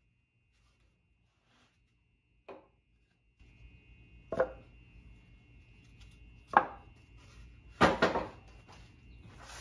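Pieces of lumber knocking and clattering as they are handled, a few separate sharp knocks with the loudest pair near the end, over a faint steady hum that comes in about a third of the way through.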